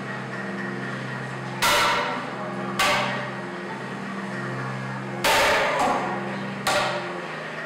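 Amplified knocks of stone, struck four times at uneven intervals, each ringing out briefly, over a low steady electronic drone.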